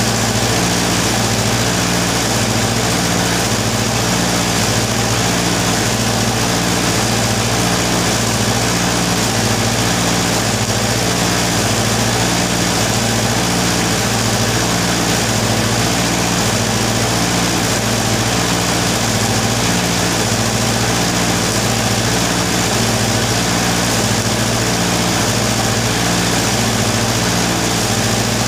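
Electric arc welding on a tractor roller: the arc crackles and sizzles steadily, over a steady low machine hum that pulses about once a second.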